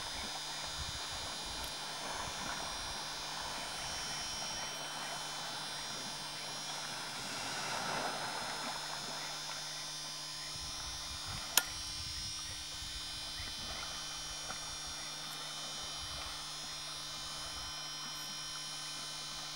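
Soft sloshing of river water as an African elephant wades through it, over a steady electrical hum and whine. A single sharp click comes a little over halfway through.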